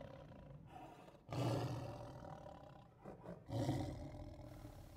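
Lion roaring twice, once about a second in and again about three and a half seconds in, each roar fading away.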